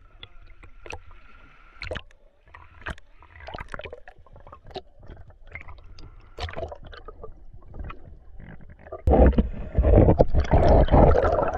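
Water splashing and sloshing close to the microphone from a person swimming, in short irregular splashes. About nine seconds in it turns much louder and denser, a close, heavy splashing that stops just after the end.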